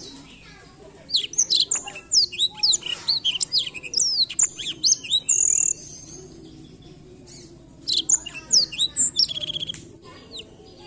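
Blackthroat (black-throated canary) singing in two bursts of quick, sharp, falling whistled notes. The first starts about a second in and lasts some four seconds; the second comes near eight seconds in and ends in a fast, even trill.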